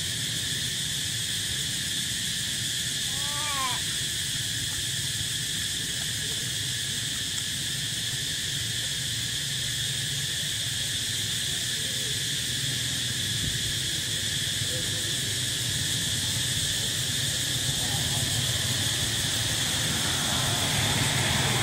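Steady high-pitched drone of insects in the trees over a low hum. About three and a half seconds in, a brief pitched animal call, and from about eighteen seconds a vehicle engine approaches, growing louder toward the end.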